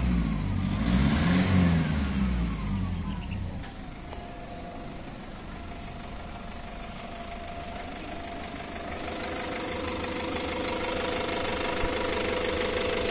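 Toyota Hiace engine revved once in the first two seconds, dropping back to a steady idle by about four seconds in. It is running after a hard-starting fault was repaired by replacing a faulty sensor.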